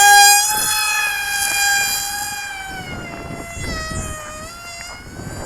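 RC model plane's electric motor and propeller at full throttle just after a hand launch: a loud, steady, high whine. It drops a little in pitch about halfway through and fades as the plane flies away.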